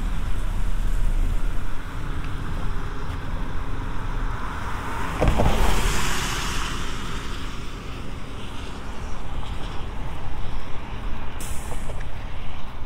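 Road traffic on the bridge: one vehicle passes, its tyre and engine noise swelling and fading about halfway through, over a steady low rumble. Another vehicle's hiss comes in suddenly near the end.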